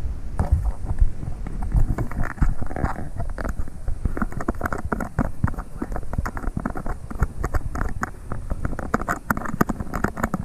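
Close rustling, scraping and tapping on a chest-mounted action camera, made by an arm and clothing rubbing against the camera and its mount. The result is a dense, irregular run of clicks.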